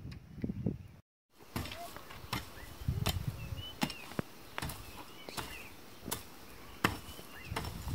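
Sharp knocks repeating about every two-thirds of a second, like strokes of a tool on wood or ground, resuming after a brief cut to silence about a second in, with faint short high chirps between them.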